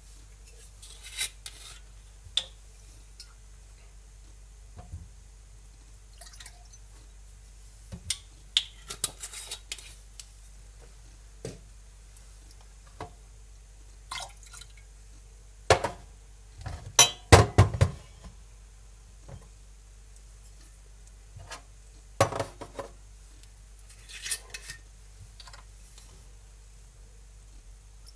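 Glass bottles and glasses clinking and knocking on a stainless-steel counter while spirits are poured into a shot glass and tipped into a tumbler, with short splashes of pouring liquid between the knocks. The loudest run of knocks comes a little past the middle.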